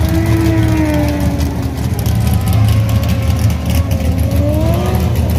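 Several high-powered drift cars' engines running close by in a steady low rumble, while one engine's pitch sags and then climbs again as it is revved.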